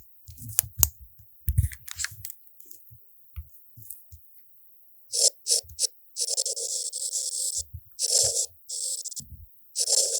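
Samsung Galaxy S23 Ultra's S Pen writing sound effect: a scratchy scribble that sounds with each pen stroke, first three short strokes, then a longer one and several more, starting about halfway through. Before that, scattered light clicks and taps.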